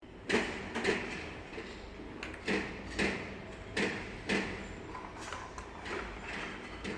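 A cat toy being pushed, making short sliding knocks in pairs about half a second apart, three pairs in the first half.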